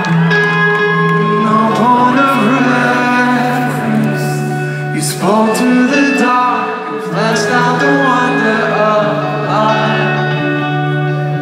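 Live band music with a man singing into a microphone over sustained chords and guitar.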